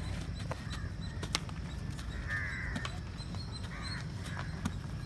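Birds cawing several times in harsh calls, over a steady low rumble. There are a couple of sharp thuds about a second and a half in and near the end as the medicine ball is caught.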